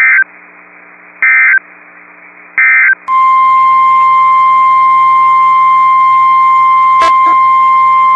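Three short bursts of NOAA Weather Radio SAME digital data, the end-of-message code that closes an alert. About three seconds in, a loud, steady 1050 Hz weather radio warning alarm tone begins, with a brief click about seven seconds in.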